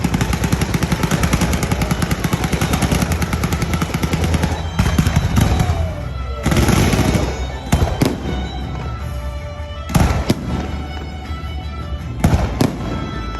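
Fireworks going off: a dense, rapid crackle of bangs for about the first four seconds, then a handful of separate, louder bangs with pauses between them. Music plays underneath.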